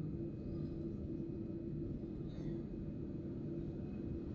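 Steady low rumble with a constant hum inside the cabin of a Boeing 787-9 airliner taxiing on the ground, its engines at idle.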